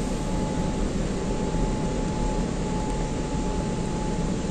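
Car wash air dryer blowing over the car, heard from inside the cabin: a steady rush of air with a thin steady whine through it.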